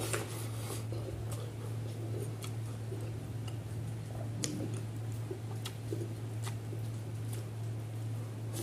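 Close-up eating sounds: wet mouth clicks and lip smacks, scattered and irregular, as rice and fish curry are eaten by hand, over a steady low hum.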